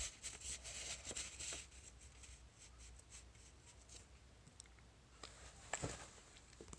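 Faint rustling and scraping of paper as a handmade paper fire alarm pull station is worked by hand, followed by a few light taps, the sharpest near the end.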